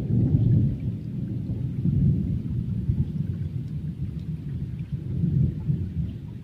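Thunder rumbling: a long, low roll that swells and surges and dies away near the end.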